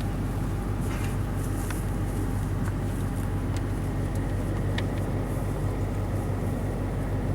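A steady low hum under an even background noise, with a few faint clicks.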